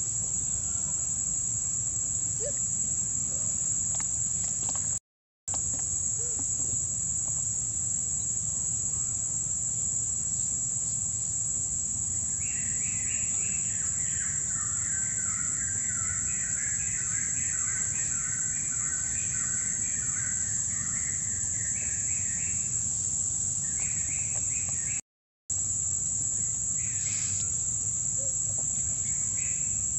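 Steady high-pitched drone of insects, with a bird calling in runs of rapid repeated notes from about twelve seconds in and again briefly near the end. The sound cuts out completely for a moment twice, about five seconds in and again near twenty-five seconds.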